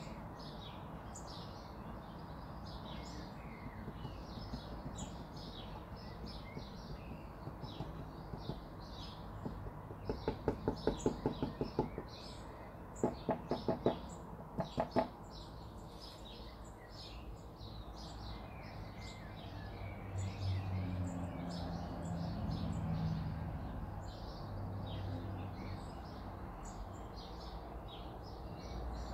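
Small birds chirping throughout. About ten seconds in come three quick runs of rapid clucking calls, the loudest sound. A low hum rises and fades in the last third.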